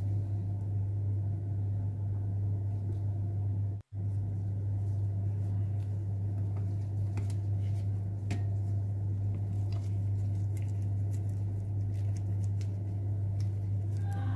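A steady low hum with a few faint light clicks, cutting out abruptly for a moment about four seconds in.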